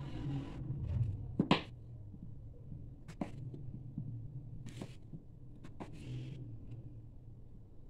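Kitchen knife cutting through raw potato and knocking on a wooden cutting board: a few separate sharp knocks with short crunchy slicing sounds between them, the loudest knock about one and a half seconds in.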